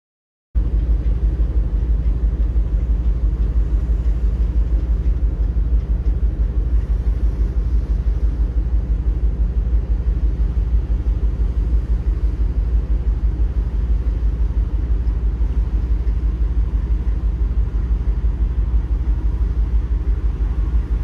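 Loud, steady low rumble of a cargo ship's engine and machinery, with a fast, even pulsing.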